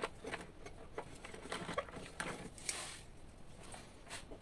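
Faint scattered clicks and light scrapes of hand tools being handled: a screwdriver and its bits picked up and worked at the screws of an old door handle.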